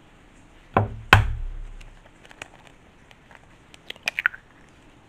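An egg being cracked: two sharp knocks against a hard edge about a second in, then a few small crackles near the end as the shell is pulled apart over the bowl.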